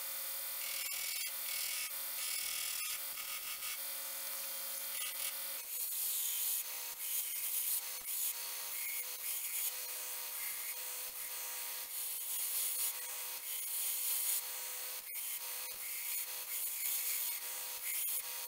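Belt grinder running with a 36-grit belt, grinding the edge of a metal sword-guard blank to profile: a steady hiss of abrasive on metal that shifts in tone about five and a half seconds in.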